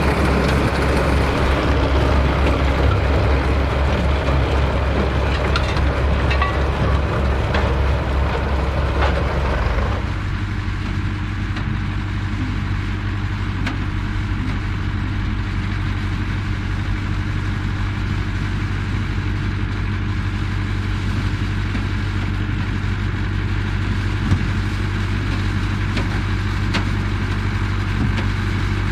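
Vintage farm tractor engine running steadily under work in a harvest field. About ten seconds in, the sound changes abruptly and becomes a smoother, steadier low hum with less clatter.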